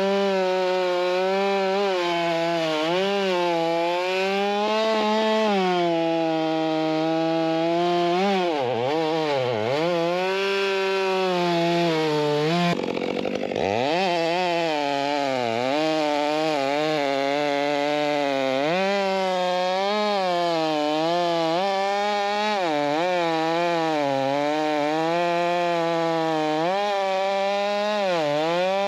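Large two-stroke chainsaw running at high revs while cutting wood, its pitch wavering as it loads up in the cut. About a third of the way in, and again near the middle, the revs drop steeply and then climb back up.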